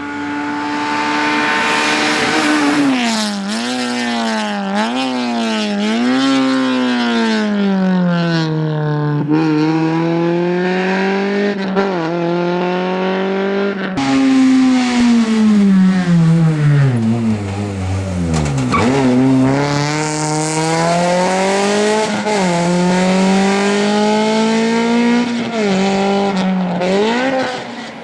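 Honda Civic rally car's engine driven hard, its pitch climbing and dropping again and again as the driver works through the gears and lifts between bends. About two-thirds of the way through, the revs fall right down to a low pitch, then climb again.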